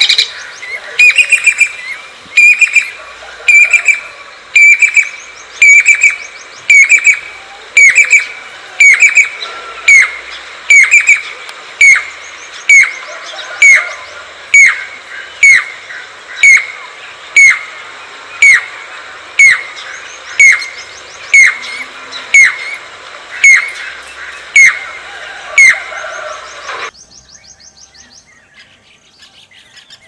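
Jacobin cuckoo (pied cuckoo) calling: a loud, ringing note repeated about once a second, each note dropping sharply in pitch. The calling stops about 27 seconds in.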